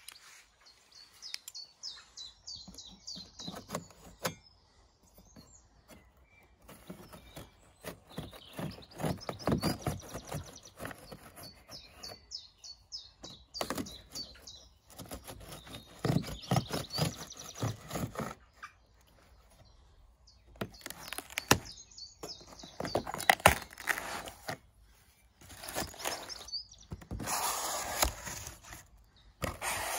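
A knife cuts through packing tape and a cardboard box, and the cardboard is torn and its flaps are pulled open: repeated bursts of scraping and ripping. Small birds chirp in the background, most clearly in the first few seconds.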